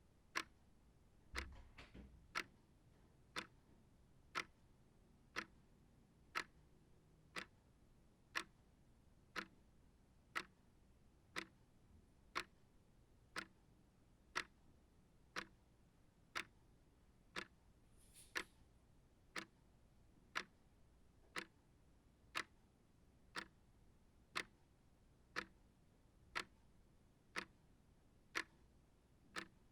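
Small shelf clock ticking steadily, about one sharp tick a second.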